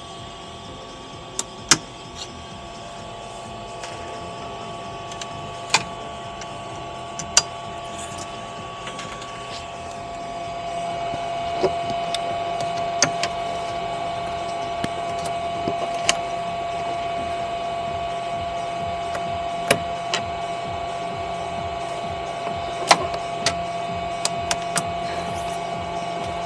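3D printer running: a steady whine of its stepper motors and fans, louder from about ten seconds in, with scattered sharp clicks.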